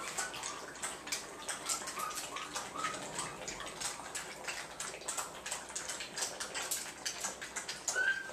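A litter of five-week-old puppies lapping and slurping goat's milk from a shared dish: a quick, wet patter of laps, with a few brief, faint squeaks among them.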